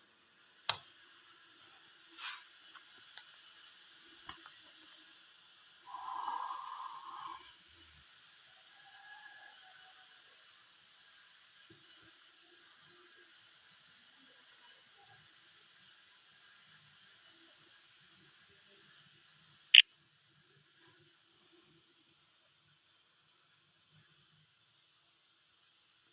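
Faint steady hiss of room noise with a few isolated clicks and a brief rustle. A sharp click comes near the end, then it fades to near silence.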